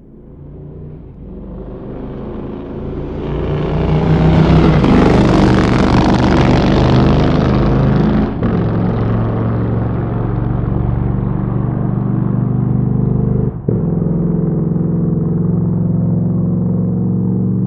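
Motorcycle engine running, building up from quiet over the first few seconds to its loudest about five seconds in. The sound drops briefly about eight and thirteen and a half seconds in, then holds steady.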